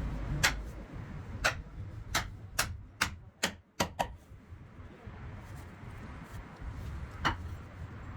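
Sharp, irregular knocks of a hand tool striking the work during hand wheel-making. There are about eight strikes in the first four seconds, then a pause and one more strike near the end, over a low steady rumble.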